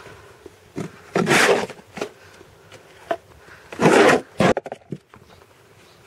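Hands pressing and firming potting compost into a large pot. There are two loud scraping rustles, about a second in and again near four seconds, with a few light knocks between them.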